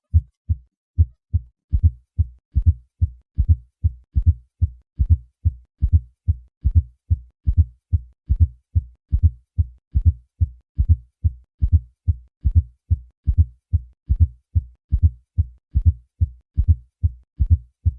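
Heart sounds at the cardiac apex with a fourth heart sound falling just before each first heart sound, giving a triple, gallop-like rhythm of low, dull thuds that repeats steadily. A fourth heart sound is the sign of a stiff, non-compliant ventricle.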